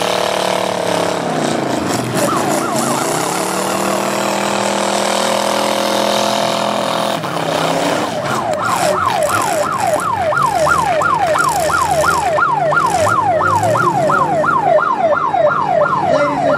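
Derby car engines revving in the first half. From about eight seconds an electronic siren cycles rapidly in a yelp, about two and a half falling sweeps a second.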